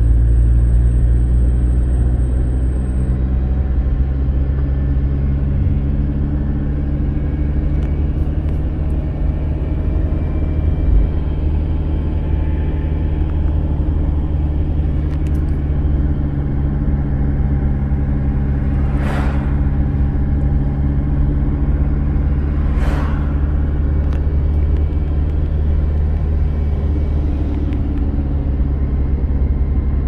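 A car's engine and road noise heard from inside the moving car: a steady low rumble and hum. Two brief hissing swishes come about two-thirds of the way through.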